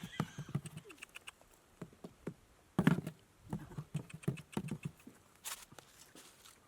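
Scattered light clicks and taps, with one louder knock about three seconds in.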